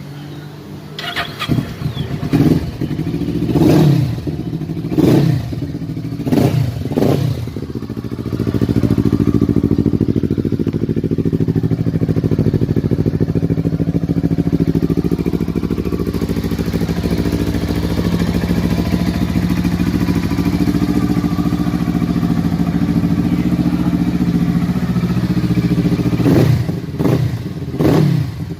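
Kawasaki Versys 650's parallel-twin engine revved in about six quick throttle blips, then held at a steady speed for most of the time, with two more blips near the end.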